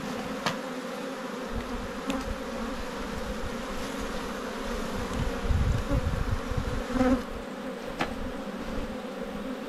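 Honeybees on an open hive buzzing as a steady, even hum. A few sharp clicks come from the wooden frames and comb being handled.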